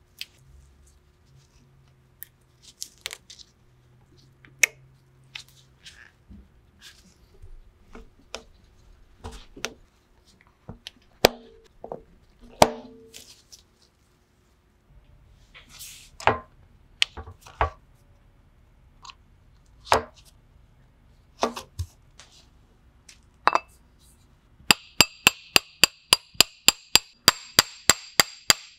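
Scattered small clicks and knocks of metal and plastic parts being handled and pressed together as a brake master cylinder is reassembled. Near the end a steady run of sharp, ringing metal taps, about four a second, starts and is the loudest sound.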